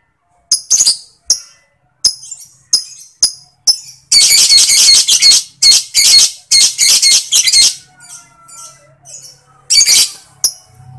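Lovebird calling: a run of separate sharp, high chirps, then a loud, rapid chattering trill in several bursts lasting about three and a half seconds, the long 'ngekek' chatter that keepers prize. Softer calls follow, and one more loud chirp comes near the end.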